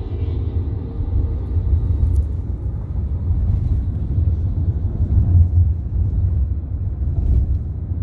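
Low, steady rumble of a car driving, heard from inside the cabin: road and engine noise.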